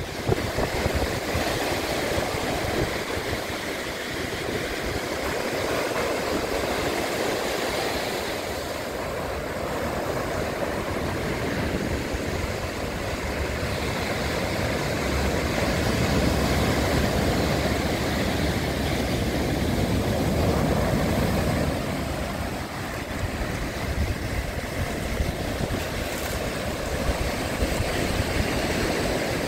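Sea surf breaking and washing up a dark sand-and-pebble beach, a steady rush that swells and eases, with wind rumbling on the microphone.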